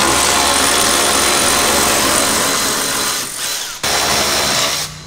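Cordless electric ratchet running, backing out the hood hinge bolts: a run of about three seconds, a brief stop, then a second shorter run.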